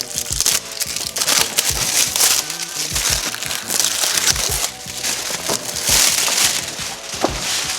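Plastic packaging crinkling and rustling in irregular bursts as a tool kit is unpacked by hand.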